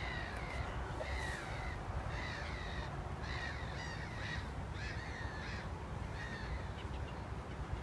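A bird calling over and over, short calls about one a second, some in quick pairs, with a steady low rumble underneath.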